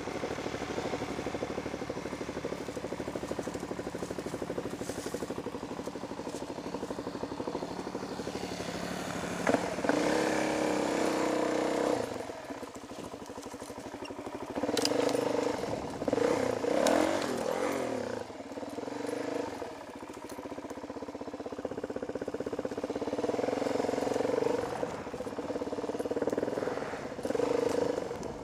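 Dirt bike engine running as it is ridden, its revs rising and falling with the throttle. The revs drop off about twelve seconds in and again for a couple of seconds just before the twenty-second mark, then pick back up.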